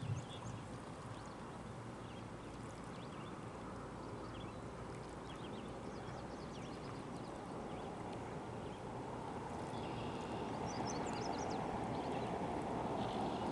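Outdoor ambience: a steady rushing noise that grows louder toward the end, with faint short bird chirps here and there.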